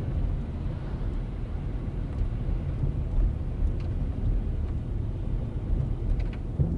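Nissan Leaf cabin on a rough road: low road and tyre rumble, with a few faint knocks from the suspension. It is hard to hear, but the owner calls it a dull sound and suspects a worn stabiliser link and tie-rod end.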